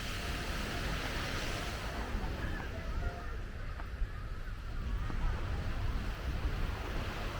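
Ocean surf breaking on the beach: a wave's hiss swells and then fades over the first few seconds, with wind rumbling on the microphone throughout.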